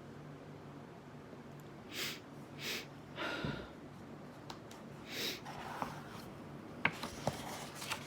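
A few short breathy sniffs and snorts, then several small sharp clicks near the end.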